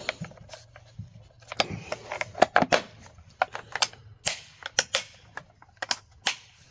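Scattered sharp clicks and light knocks of hard plastic and metal parts being handled and fitted on a Husqvarna 450 Rancher chainsaw, a dozen or so at uneven spacing.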